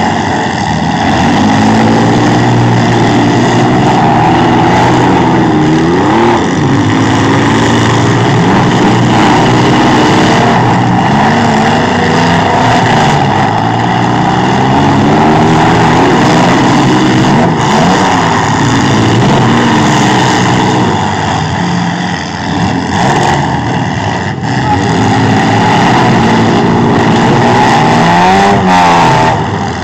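Demolition-derby trucks, vans and SUVs running hard in the arena: several engines revving up and down over and over, with the pitch rising and falling every second or two.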